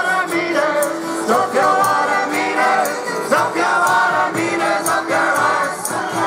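Live band performing a song, with several voices singing over acoustic guitar and a regular percussion beat, amplified through outdoor PA speakers.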